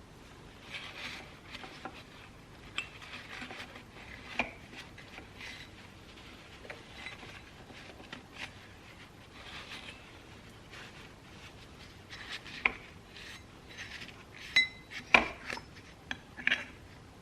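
Motorcycle clutch plates clinking and rubbing against each other as they are handled, in irregular light clicks, with a few sharper clinks in the last few seconds.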